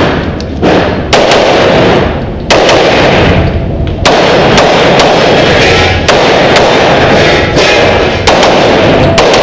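Rapid pistol shots from a competition handgun with a red-dot sight, more than a dozen in quick strings about half a second apart, each ringing on in the echo of an indoor range.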